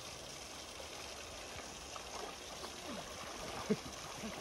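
Shallow river flowing steadily over a gravel riffle, with small gurgles of water around a wading angler's legs and one brief sharp sound near the end.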